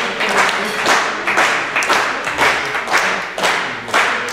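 Spectators clapping together in a steady rhythm, a little over two claps a second, spurring on a weightlifter before his lift.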